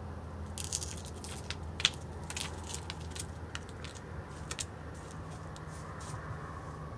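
Mule deer close to the microphone, making a series of irregular, crisp crunches and clicks that are densest in the first few seconds and thin out near the end. A steady low hum runs underneath.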